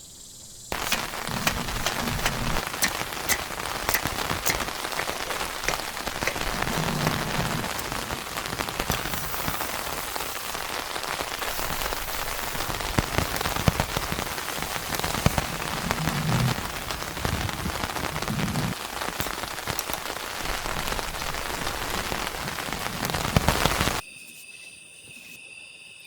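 Rain falling steadily, with many sharp ticks of individual drops striking a surface close by. Near the end it cuts off abruptly to a much quieter sound with a few steady high tones.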